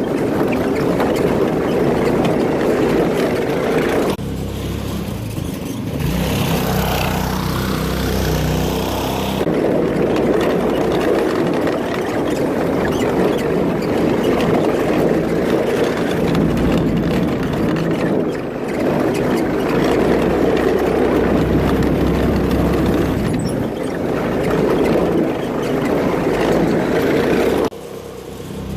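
Go-kart's small single-cylinder four-stroke engine (Predator 212) running under throttle while riding, its level and pitch shifting, with a brief dip about four seconds in.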